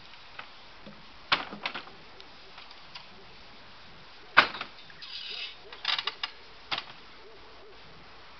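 A wooden platform and the metal frame of a homemade lever lift knocking and clattering as the platform is levered up. There is a sharp knock a little over a second in and the loudest knock about four seconds in, then a short scrape and a quick cluster of knocks.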